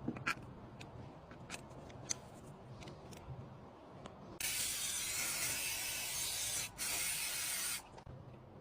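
Pressurised spray hissing in two bursts, one of about two seconds and a second of about one second, after a few light clicks and taps of metal tools.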